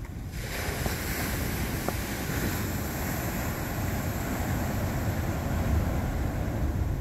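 Ocean surf rushing and washing in, a steady hiss that swells in about half a second in, over a low rumble of wind buffeting the microphone.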